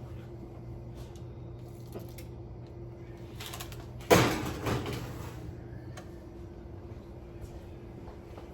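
Kitchen handling noises while pans of conchas are moved around: a few light clicks and one loud clunk about four seconds in that rings briefly, over a steady low hum that stops about six seconds in.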